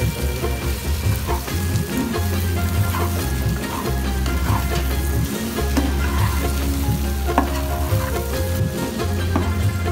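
Beef pieces frying in oil in a black pan, sizzling steadily while a metal spatula stirs them, with scattered clicks and scrapes of the spatula against the pan.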